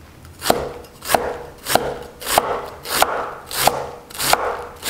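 A rectangular Chinese cleaver slicing through a head of green cabbage into thick shreds on a wooden chopping board. The sound is a crisp crunch of leaves ending in a knock of the blade on the board, repeated about seven times in an even rhythm, roughly every two-thirds of a second.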